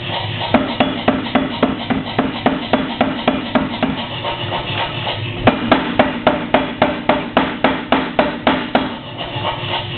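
Mechanical power hammer pounding hot steel chainplate stock in a fast, even rhythm of about three to four blows a second over a steady machine hum. The blows grow sharper and louder about halfway through.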